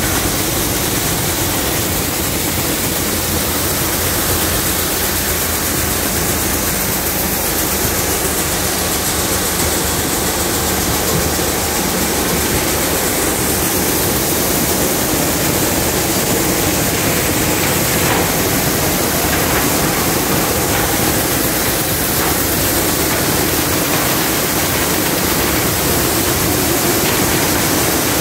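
Multicrop thresher running steadily under load: a loud, even rushing noise of the machine at work, with grain pouring out of its outlet chute.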